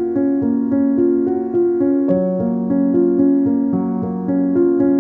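Background music played on a keyboard: a piano-like melody over sustained lower notes, the notes changing at an even pace.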